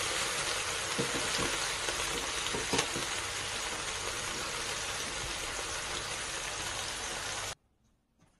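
Steady sizzling hiss with scattered crackles, cutting off suddenly about seven and a half seconds in.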